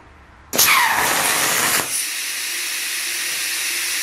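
Air plasma cutter firing about half a second in on a homemade CNC table: a sudden loud blast for just over a second, then a steady high hiss of the arc and compressed air as it cuts a steel plate.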